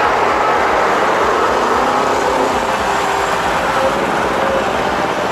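Steady machine running noise, with no pauses or sharp knocks.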